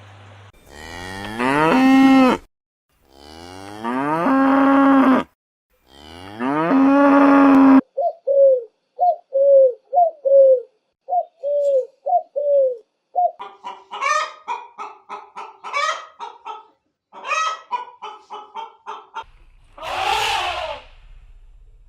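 A string of farm animal calls: three long, rising lowing calls like a cow's, then a run of about a dozen short honks, then a burst of rapid clucking from fowl, and two rough calls near the end.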